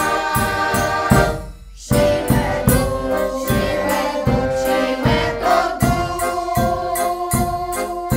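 Folk music: a women's ensemble singing to an accordion and a frame drum, the drum beating steadily, with a brief gap in the music about a second and a half in.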